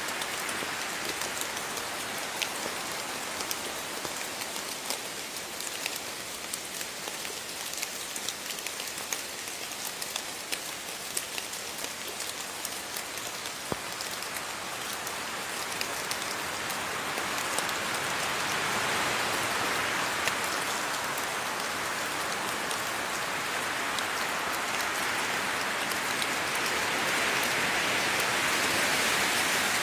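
Steady rain falling, an even hiss with many small drop ticks, growing heavier in two swells, one midway and one near the end.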